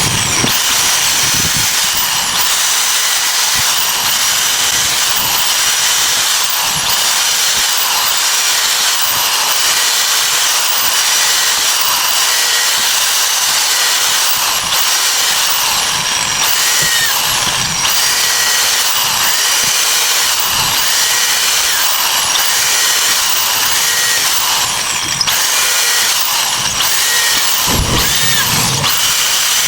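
A power tool running steadily while working material, a loud continuous noise with no pauses.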